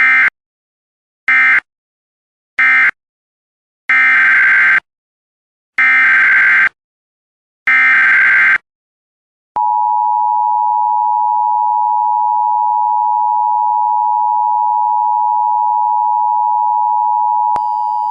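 Emergency Alert System SAME data bursts: three short digital warbles, the end-of-message code, then three longer ones, the header of the next alert. About a second later the steady two-tone EAS attention signal starts and holds for about eight seconds, with a few higher tones joining it near the end.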